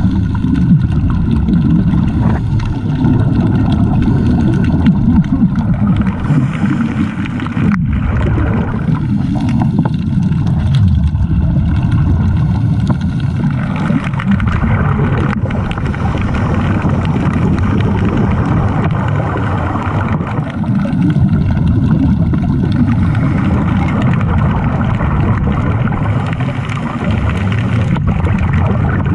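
Muffled underwater rumble and bubbling from a scuba dive, with a steady motor-like hum underneath.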